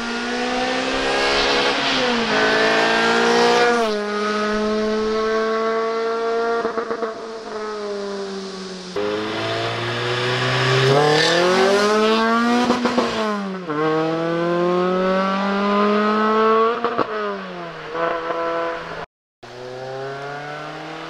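Renault Clio RS III's 2.0-litre four-cylinder through an R3 exhaust, accelerating hard past in several runs. The revs climb, and the pitch drops sharply at each upshift, twice in the first few seconds. About halfway through, the note rises to a peak and falls away as the car passes.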